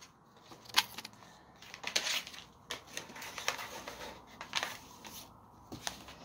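Sealed paper envelope being opened and a photograph in a clear plastic sleeve pulled out: paper and plastic rustling in short bursts, with a few sharp clicks, the sharpest just under a second in.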